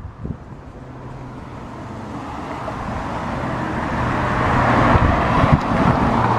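Road traffic noise that grows steadily louder over several seconds, with a low steady hum underneath.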